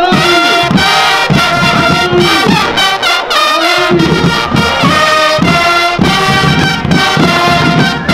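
Marching band of brass instruments and drums playing a march, with a steady drumbeat under the brass melody.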